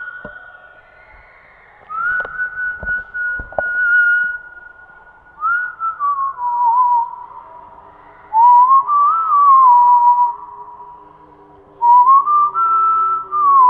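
A person whistling a slow, wavering tune in separate phrases of one to two seconds: long held notes with slides down between them. A few sharp clicks come in the first few seconds, and faint low steady tones join in the second half.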